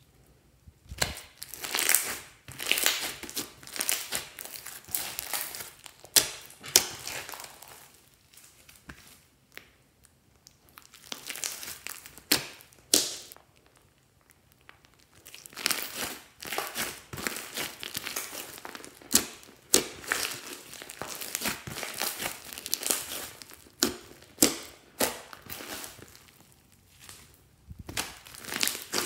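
Glossy slime full of foam beads being squished, stretched and folded by hand, giving wet crackling with sharp clicks and pops in irregular bursts and a few short pauses.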